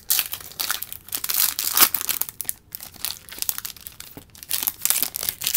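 Plastic wrapper of a baseball card pack crinkling and tearing as it is pulled open by hand, a dense run of crackles.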